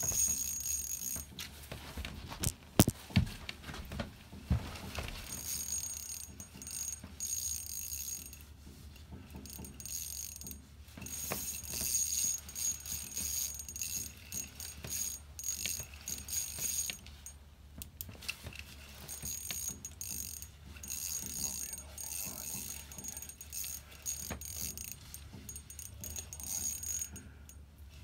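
Fishing reel's drag ratcheting in spurts of one to a few seconds as a hooked northern pike pulls line during the fight, with a few sharp knocks about three seconds in.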